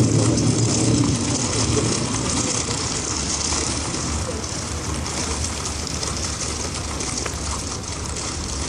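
Road traffic: a vehicle's engine and tyre rumble, loudest at the start and fading over the first couple of seconds as it moves away, leaving a steady hiss of passing traffic.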